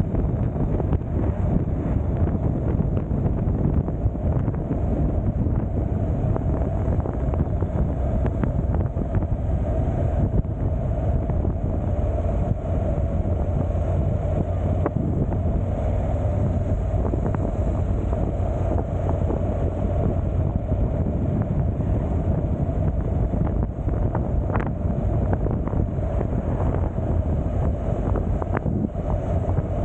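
Wind rushing over the camera microphone during a ride, over a steady low drone of vehicle and road noise, with a few faint ticks.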